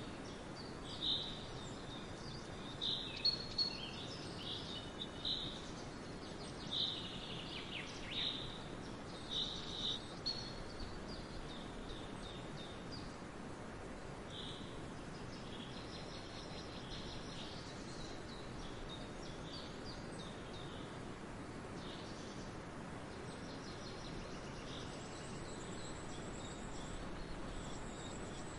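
Wind blowing through a barley field as a steady rustling noise, with swallows chirruping in short high chirps. The chirps come thick and fast for the first ten seconds or so, then turn sparse and faint. Near the end a faint, high, steady cricket chirping comes in.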